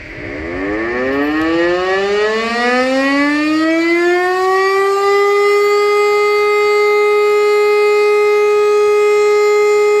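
E57 electromechanical civil-defence siren spinning up for a test alarm: its pitch rises slowly for about five seconds, a long run-up, then settles into one steady loud tone.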